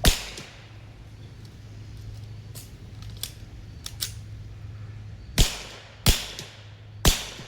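Four gunshots from a suppressed pistol-caliber carbine: one right at the start, then three about a second apart near the end, with a few faint clicks between them.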